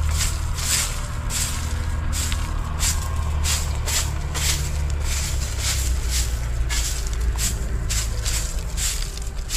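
A long straw broom sweeping dry leaves and grit across a dirt path, in brisk repeated strokes about every half second, each a short scratchy swish. A steady low rumble runs underneath.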